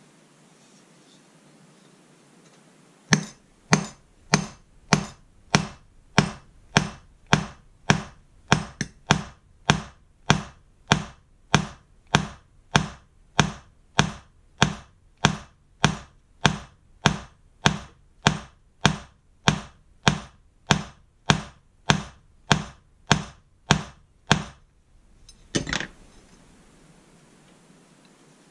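Small ball-pein hammer striking the steel hook of a spring balance held on a flat steel plate: a steady run of sharp metal-on-metal taps, a little under two a second, starting about three seconds in and lasting some twenty seconds, then a quick double knock near the end.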